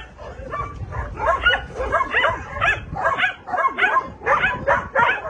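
Several dogs barking and yipping at play, overlapping calls almost nonstop at about three a second. Wind rumbles on the microphone underneath, most in the first two seconds.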